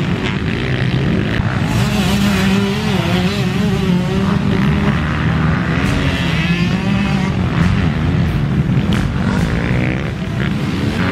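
Several motocross bike engines racing past, their notes overlapping and rising and falling in pitch as the riders rev and shift through the gears.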